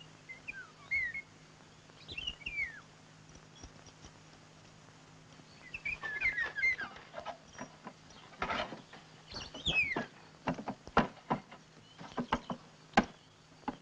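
Small birds chirping in short gliding calls. In the second half they are joined by a run of sharp knocks: a child's footsteps on a wooden slatted ramp.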